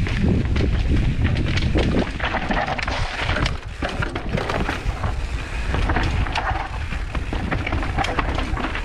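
Mountain bike descending a rocky trail: wind rumble on the microphone with the tyres and frame clattering over rocks and roots in many quick knocks.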